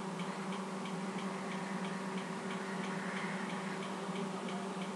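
Room background during a pause in speech: a steady low hum with a light, regular ticking repeating evenly over it.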